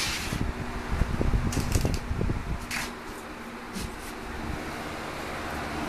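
Rustling and soft bumps on a bed comforter as a kitten chases a string pulled across it, over the steady hum of a box fan; the rustling dies away about three seconds in, leaving the fan.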